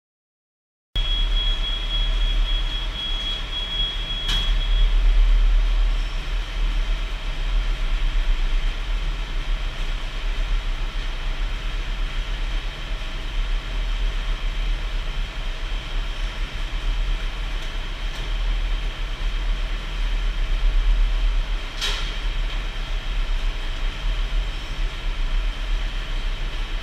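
Steady mechanical running noise with a deep rumble and a steady high whine, starting suddenly about a second in; two sharp clicks, one about four seconds in and one later.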